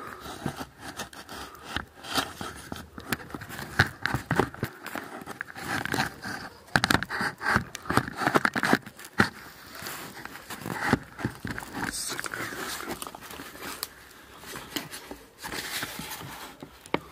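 Small campfire crackling, a dense irregular run of snaps and rustles as it burns low.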